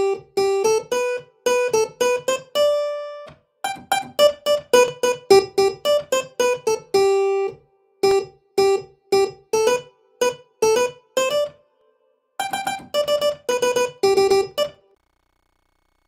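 Mobile phone ringtone: a melody of short, quickly fading notes, played in four phrases with brief pauses between them, stopping about a second before the end.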